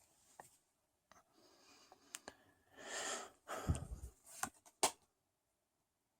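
Trading cards and their packaging being handled: soft rustles and a few sharp clicks, with a louder rush of noise about three seconds in, a low thump just after it, and two sharp clicks a little later.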